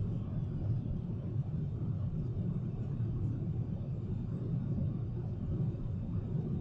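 Steady low rumble of a Boeing 777-300ER's cabin in flight: engine and airflow noise, even and unchanging.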